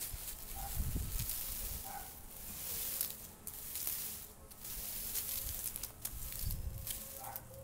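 Dry plant stalks rustling and crackling as they are dragged through grass and batted by a kitten, with a few low bumps.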